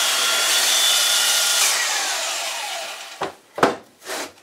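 Makita handheld electric planer running as it cuts a chamfer along the edge of a wooden block. Its motor is then switched off and winds down with a falling whine, followed by a few short knocks.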